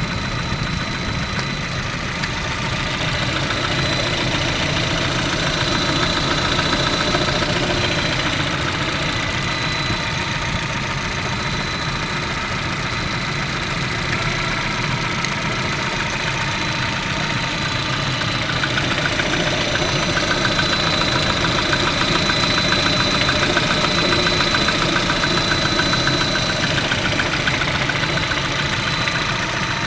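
VAZ 11194 1.4-litre 16-valve four-cylinder engine running steadily with a knock from its lightweight pistons, the diesel-like clatter the uploader takes for piston knock. It gets a little louder twice.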